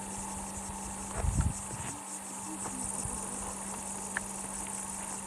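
Insects chirping steadily in a high, faintly pulsing drone, with a brief low thump about a second in.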